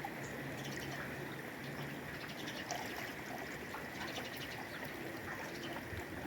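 Spring water pouring steadily into a container as it is filled.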